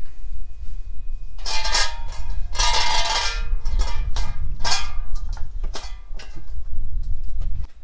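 Clanking and ringing of a stainless steel bowl and its steel shaft and blade being worked by hand, in several short bright rings over a low steady rumble.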